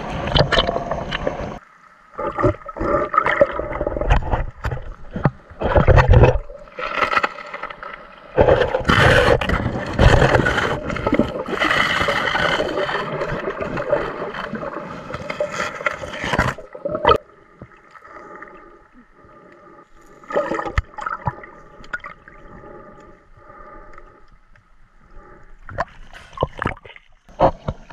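Muffled underwater water noise through a submerged action camera: rushing, bubbling swells as a snorkeler dives along the sea floor, going quieter for several seconds. The camera goes under about two seconds in and breaks the surface near the end, bringing back open-air splashing.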